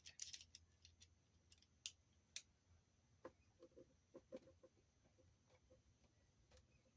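Faint, irregular small clicks and ticks from screws being turned into an aluminium RC car wing mount and the small metal parts being handled.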